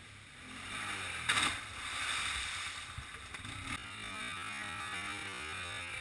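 Sport quad's single-cylinder four-stroke engine revving as it approaches, growing louder about half a second in, with a short loud burst a little over a second in.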